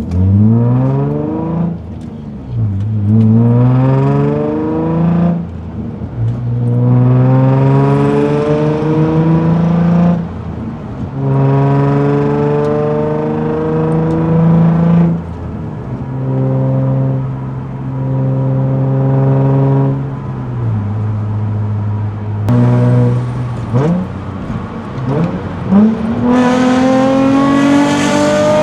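Nissan 350Z's VQ35DE V6 with an aftermarket Y-pipe and test pipes, accelerating repeatedly through the gears. The pitch climbs, falls at each upshift and climbs again, with a spell of steady cruising past the middle before two more pulls near the end.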